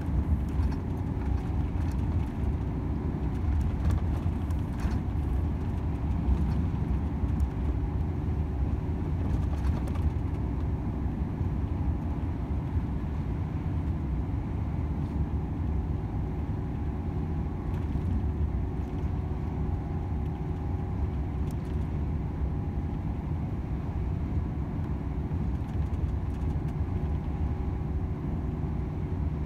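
Volvo FH 500 truck's 13-litre straight-six diesel running steadily on the move, with a continuous low rumble of engine and road noise.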